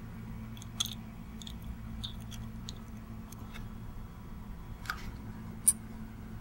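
Small scattered clicks and taps of a plastic petri dish being handled while seeds are nudged out of it with a thin stick, about seven in all, the sharpest near the end, over a steady low hum.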